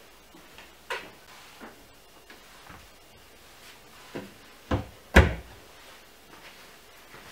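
Solid pine cupboard door being handled: a few light wooden knocks and clicks, then two sharp louder knocks a little after halfway as the door bumps shut against the frame.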